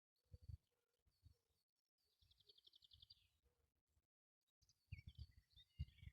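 Near silence with faint bird calls: a quick trill about two seconds in and a cluster of short chirps near the end, over soft low thumps.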